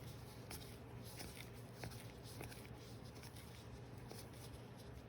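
Faint soft ticks and rustles of trading cards being handled and laid down one by one, over a steady low hum.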